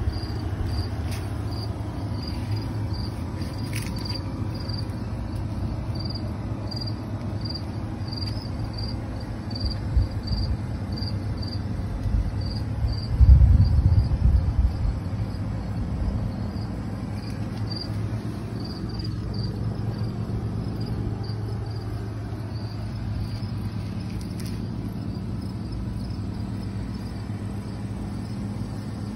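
A cricket chirping steadily, short high chirps about two a second, over a low steady rumble that swells for a couple of seconds about halfway through.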